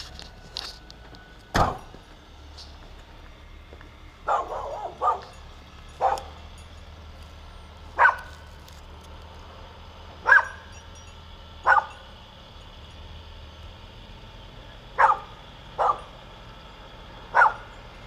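A dog barking in single sharp barks, about ten in all, one every second or two, over a low steady engine hum that fades out near the end. There is one heavier thump about a second and a half in.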